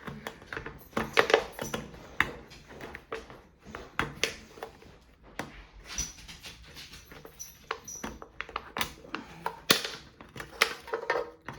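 Leatherman Surge multi-tool's can opener levering and cutting its way around a can lid: irregular metal clicks and short scrapes.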